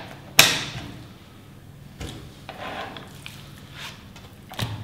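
A sharp clack of kitchen scissors about half a second in, then a whole brill is lifted and turned over on a plastic cutting board, with soft wet handling noises and a light knock as it is laid down near the end.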